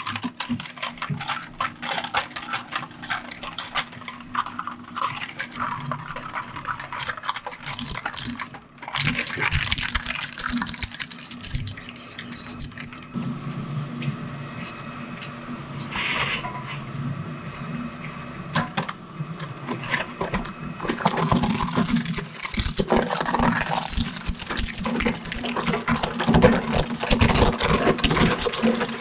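Twin-shaft shredder's steel cutter discs running with a steady low hum while they crush plastic toy cars, with continual cracking, snapping and crunching of plastic. The crunching thickens into a dense grinding for a few seconds about a third of the way in, and the cracks grow louder near the end as a larger toy goes in.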